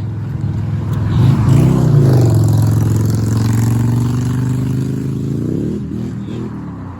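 Car engine driving past close by, loud and odd-sounding. Its note rises about a second in as it accelerates, holds steady, then drops away and fades near the end.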